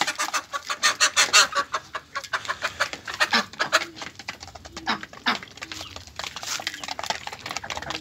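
A flock of hens and ducks pecking grain from plastic feed dishes: a rapid, irregular patter of beak taps. A few short hen clucks come about halfway through.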